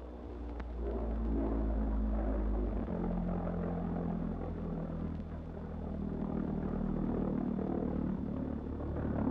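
Steady low engine-like drone with a rumble, growing a little louder about a second in and shifting pitch about three seconds in.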